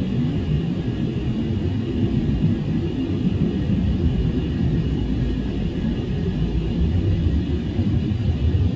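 Steady low rumble of an airliner in flight, heard from inside the cabin.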